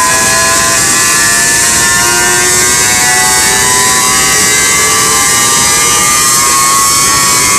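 800-horsepower electric motor of a whole-tree chipper spinning up its rotor on a soft start: a loud steady noise with several whining tones that climb slowly in pitch as it gathers speed.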